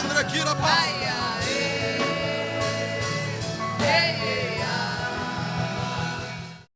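Worship music with singing and sustained keyboard-like chords, fading out into silence just before the end.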